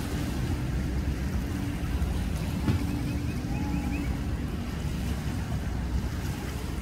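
Steady low rumble of boat engines idling on the water, mixed with wind on the microphone and waves. A faint hum fades out about halfway through, and there is one sharp click a little under three seconds in.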